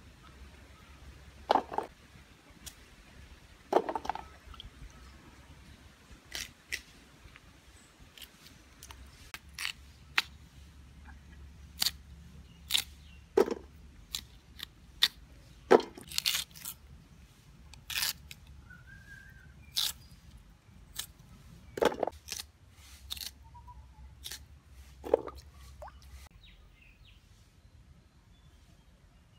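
Knife cutting raw peeled cassava root into chunks by hand: irregular sharp crunching cracks and clicks, some with a duller knock, a second or so apart and stopping near the end.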